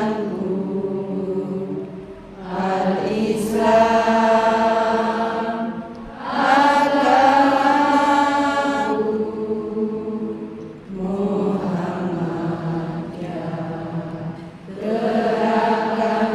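A group of voices chanting an Islamic prayer recitation in unison. The voices draw the words out in long sung phrases, about five of them, each separated by a short breath.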